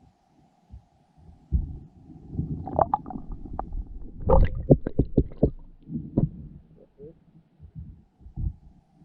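Irregular low thumps and knocks over a rumble, with a cluster of sharper clicks and knocks about four to five and a half seconds in.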